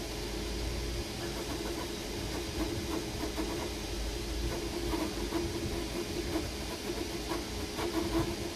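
Creality Ender-3 V3 KE 3D printer printing: its stepper motors hum at a steady mid pitch that swells and fades as the print head moves, over a continuous hiss of its cooling fans.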